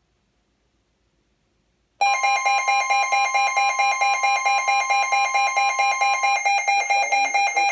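Loud electronic alert tone that starts suddenly about two seconds in and pulses about four times a second: the alarm for a new warning on NOAA Weather Radio. A steady tone beneath it stops about four seconds later.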